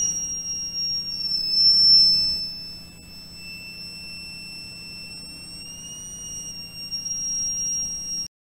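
Battery-powered electronic buzzer sealed inside an airtight syringe, sounding a steady high-pitched tone. It turns clearly fainter about two and a half seconds in as the plunger draws out and thins the air around it. It grows louder again near the end, then cuts off suddenly.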